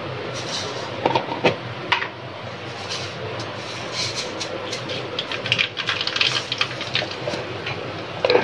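Ghee heating in a steel kadai over a lit gas burner: a steady hiss and hum with light crackling, which becomes more frequent from about halfway as the fat gets hot.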